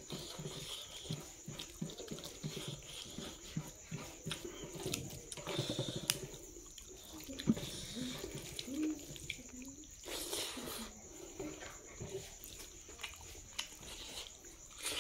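Wet chewing and lip-smacking of a person eating rice and fatty pork by hand, an irregular run of soft smacks and clicks.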